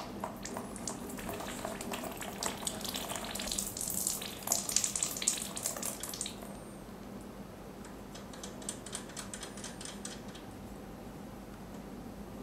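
Water trickling and gurgling through a funnel and hose into a beauty machine's water tank, with many small crackling clicks, loudest around four to six seconds in.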